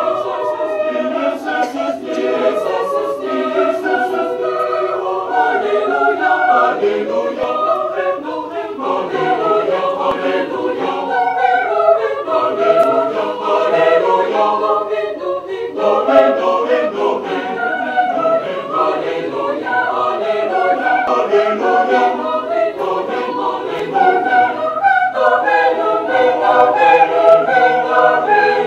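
Mixed choir of women's and men's voices singing a cappella in parts, without a break. The sound grows fuller and a little louder near the end.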